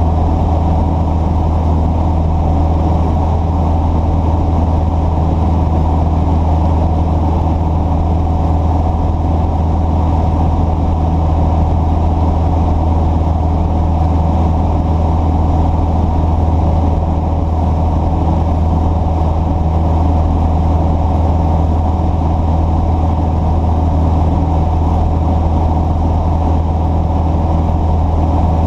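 An engine running steadily at a constant speed: a deep, even drone with no change in pitch or level.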